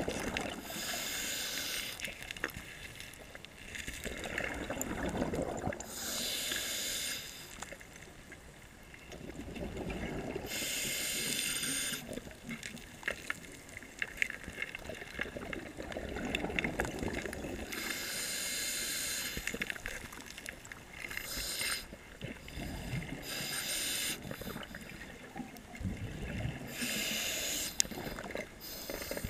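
Scuba diver breathing through a regulator underwater: a rhythmic cycle of regulator hiss and bursts of exhaled bubbles repeating about every five seconds.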